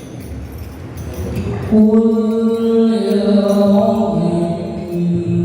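A voice chanting a dzikir, holding long drawn-out notes over a sound system. It enters about two seconds in, after a low rumbling noise, and steps down in pitch partway through.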